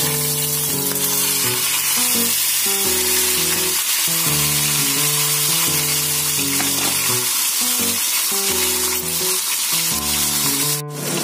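Cassava-flour-coated pompano sizzling in hot oil in a pan, a steady dense hiss as it fries. Background music with held low notes plays underneath, and the sound cuts out for a moment near the end.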